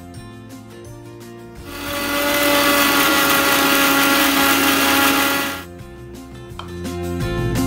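Electric mixer grinder's motor running for about four seconds, with a steady whine, as it grinds onion, coconut and spices with a little water into a wet paste; it starts about two seconds in and cuts off near the end. Soft background music plays throughout.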